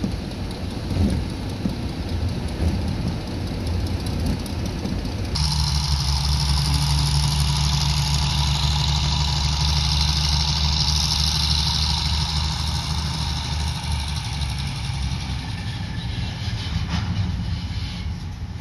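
Small diesel switcher locomotive running as it slowly moves a string of covered hopper cars. For the first five seconds wind buffets the microphone over the engine; then the sound changes abruptly to a steady low diesel drone with a high hiss, fading a little near the end.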